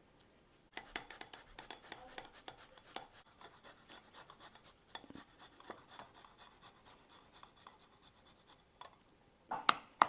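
A spoon stirring thick mayonnaise garlic sauce in a bowl, a fast run of small scraping clicks against the bowl, with a few louder knocks near the end.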